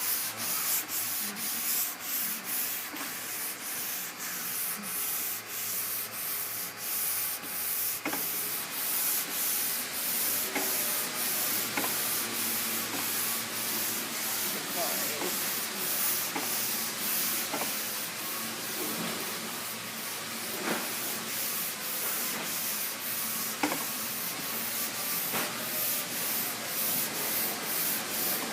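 Curvecaster sanding board with sandpaper being pushed back and forth over a primed car trunk lid, a steady rasping in regular strokes about two a second, as the lid is block sanded to find its highs and lows.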